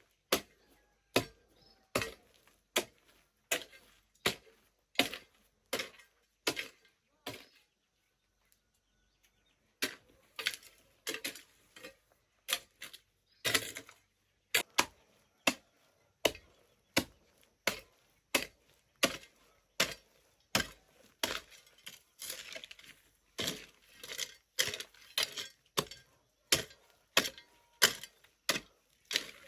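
Steady chopping strikes of a hand tool, about one and a half a second, with a pause of about two seconds near the first third.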